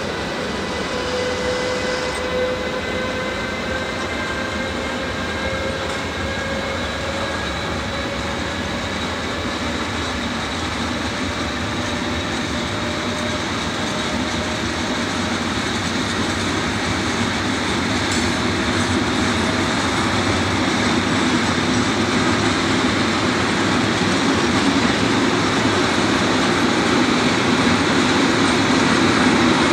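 A long container freight train's wagons rolling past on the rails: a steady rumble of wheels with faint thin squealing tones that drift slowly upward, getting louder toward the end.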